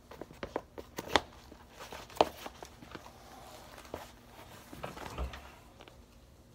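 Adidas Gazelle shoes knocked and shuffled on a hard floor by bare feet: a run of light knocks and scuffs, the two sharpest about one and two seconds in, and a dull thud about five seconds in.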